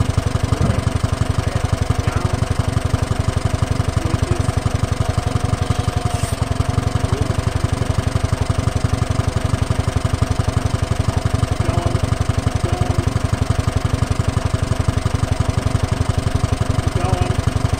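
Old Datsun forklift's engine idling steadily, with an even, fast pulse.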